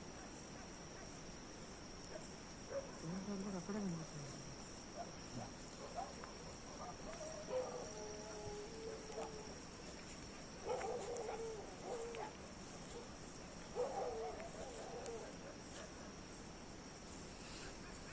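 Crickets chirring in a steady, high continuous chorus. A few faint pitched calls come and go several times in the middle.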